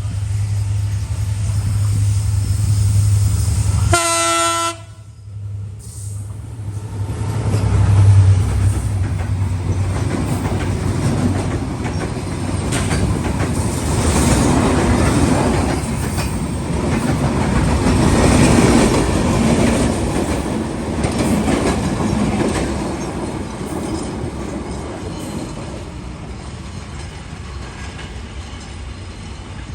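Rupsa Express passing at speed: a diesel locomotive's low steady engine drone, a short horn blast about four seconds in, then a long run of coaches clattering over the rail joints that slowly fades.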